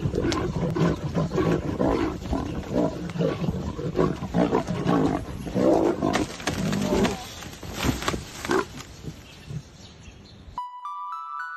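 Lions growling in many short, rough bursts, one after another. Near the end the growling cuts off suddenly and a steady electronic tone starts.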